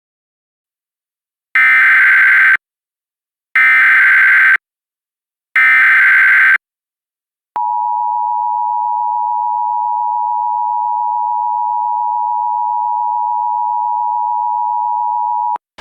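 Emergency Alert System tones: three one-second bursts of the SAME digital header data chirp, a second apart, announcing an alert. They are followed by the steady EAS attention signal, held for about eight seconds before it cuts off.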